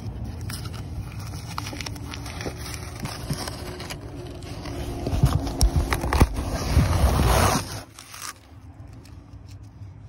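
Masking tape and paper being peeled off canvas tent fabric: crackling, tearing and crinkling with scattered clicks. It grows louder a little before halfway and stops abruptly about three-quarters of the way through.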